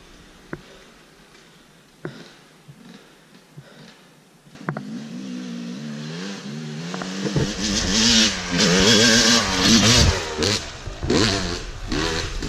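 Yamaha YZ250 two-stroke dirt bike engine: faint at first, then about four and a half seconds in it comes in and revs up and down repeatedly, growing loud as the bike comes closer in the second half.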